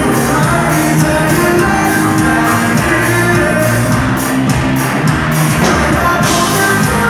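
Live band music played loudly through a PA, with drums keeping a steady beat, guitar and bass, and a rapper's vocals over it.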